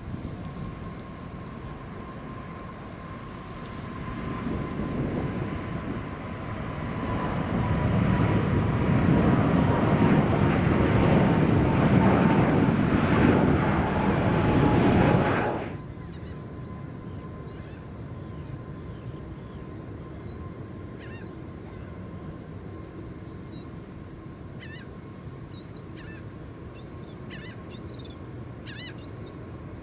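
Boeing 747's four jet engines at takeoff power during the climb-out: a loud rushing noise with a whine that slowly falls in pitch, building for several seconds and then cut off abruptly about halfway through. After the cut, a much quieter steady high insect chirring with scattered bird chirps.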